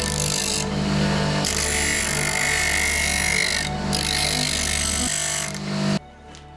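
Power drill running in three bursts while drilling mounting holes, its motor hum steady underneath; it stops abruptly near the end.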